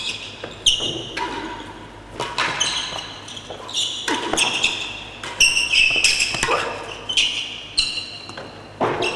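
A real tennis rally: the hard ball struck by rackets and banging off the court's walls and floor, about a dozen sharp hits at an uneven pace. Each hit rings and echoes briefly in the enclosed court.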